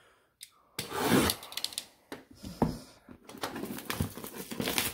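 A cardboard box being handled and scraped on a wooden tabletop: an uneven run of rubbing and rasping strokes, with a few sharper scrapes.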